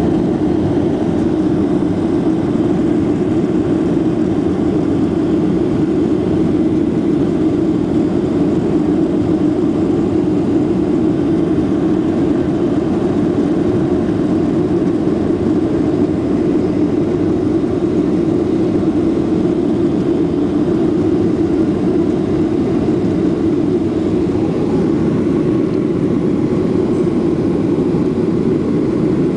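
Steady engine and air noise inside a jet airliner's cabin during the climb after takeoff: an even, unbroken drone with no change in level.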